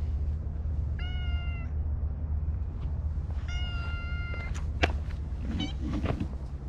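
A black-and-white cat meowing twice, two drawn-out, even-pitched meows about two seconds apart, the second a little longer. A sharp click comes just before the end, over a steady low rumble.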